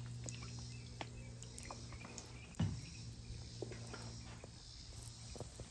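Faint background: a steady low hum with scattered light ticks, and a single dull thump about two and a half seconds in.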